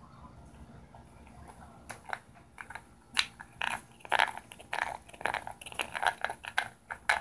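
Irregular crackling, rustling and clicking of a hand handling a small object right by the microphone, starting about two seconds in and busiest in the middle.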